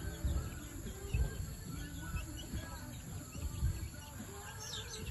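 Chickens foraging in loose earth: many short high chirps throughout, with a few soft low thuds.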